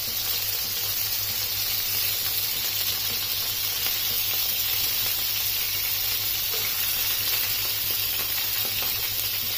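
Seekh kababs on metal skewers sizzling steadily in oil on a flat iron tawa, a continuous even frying hiss.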